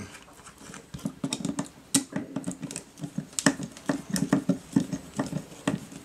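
Screwdriver turning out small Torx screws in a joystick housing: a run of light, quick clicks, a few a second.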